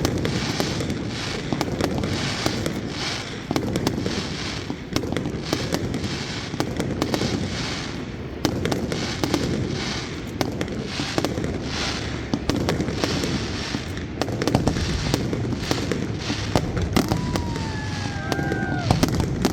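Fireworks display going off continuously: a dense run of cracks and bangs over a rolling rumble. Near the end a falling whistle-like tone joins in.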